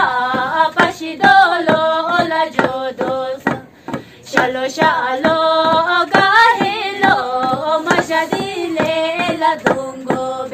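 Women singing a Bhutanese work song, with sharp knocks about three a second keeping time under the voices. The singing breaks off briefly about four seconds in.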